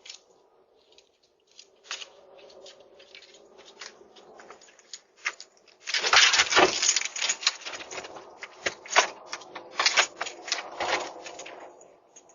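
A long, rough, sputtering fart picked up by a Ring video doorbell's microphone, tinny and crackly. Faint scattered crackles come first, then about halfway it turns louder and rougher for several seconds, with many sharp pops.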